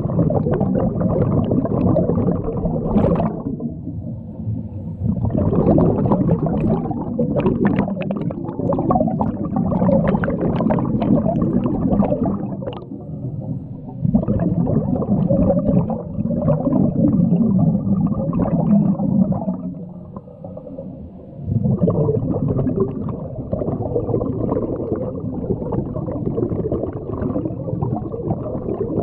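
Scuba regulator breathing heard underwater: long bubbling rushes of exhaled air, several seconds each, broken by short quieter lulls between breaths.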